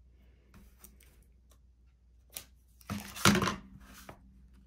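Blue painter's tape being handled: a few faint clicks, then one loud rasp about three seconds in as tape is pulled and torn.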